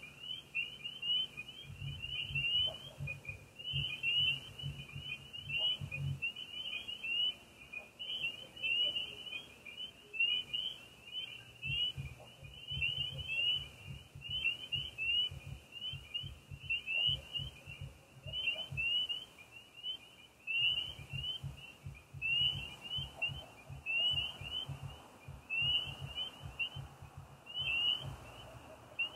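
Night chorus of crickets and frogs: a steady high-pitched chirping throughout, with a low, rapid pulsing trill that comes and goes in three long stretches.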